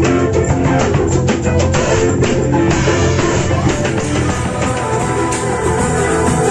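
Guitar music with drums, steady and loud.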